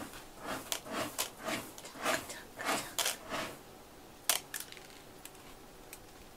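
A cat scratching at litter in a plastic litter box, with about ten quick gritty strokes in the first three seconds or so, then a single sharp tap a little after four seconds and a few faint ticks.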